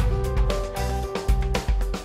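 Background music with a steady beat, a bass line and held melody notes.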